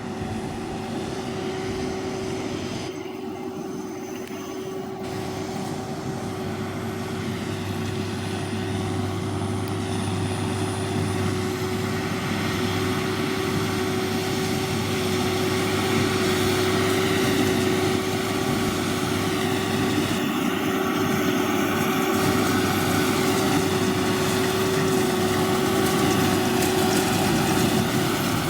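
John Deere 7530 tractor running steadily under load, pulling a Massey Ferguson 2270 square baler, with a steady engine drone and whine. It grows gradually louder as it comes closer.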